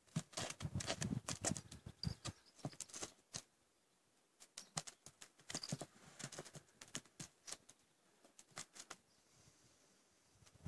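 A donkey foal's hooves stepping on hard, stony dirt while it nudges a plastic ball about: irregular light taps and scuffs, with two brief lulls.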